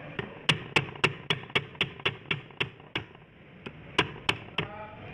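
Hammer tapping on a part of a manual transmission being dismantled: a quick run of sharp blows, about four a second, then a pause and four more spaced blows, the last followed by a brief ring.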